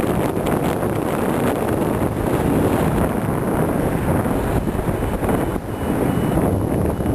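Wind rushing over the microphone of a paraglider's camera in flight: a steady loud buffeting, with a brief dip about five and a half seconds in.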